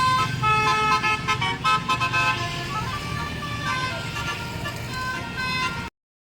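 Basuri telolet bus horn with roof-mounted trumpets playing its tune: a run of steady tones stepping from note to note, over a low rumble. It cuts off abruptly near the end.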